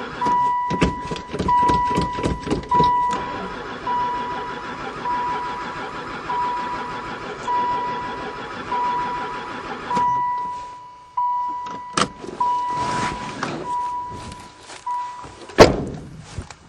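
Van's dashboard warning chime beeping at one steady pitch, about once a second, with the key in the ignition of an engine that won't fire. Clattering clicks sound in the first three seconds, and a loud knock comes near the end.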